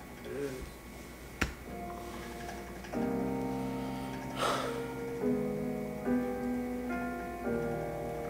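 Slow, soft piano music with sustained chords that swell in about three seconds in and change roughly every second. A single sharp click comes about a second and a half in.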